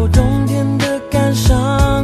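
Background pop music with a steady beat under a gliding melody.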